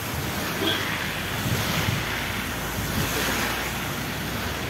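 Car moving on a wet road, heard from inside the car: a steady rushing of tyres and wind noise over a low rumble.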